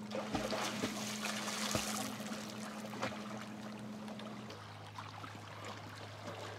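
Lake water splashing and sloshing as swimmers kick along holding a large rubber inner tube, busiest in the first two seconds. A steady low hum runs underneath and drops in pitch about four and a half seconds in.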